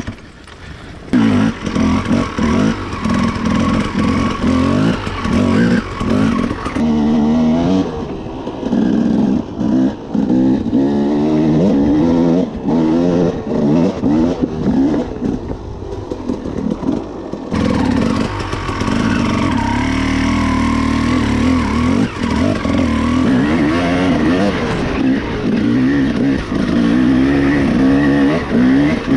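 Dirt bike engine being ridden, revving up and falling back again and again. It is loud from about a second in.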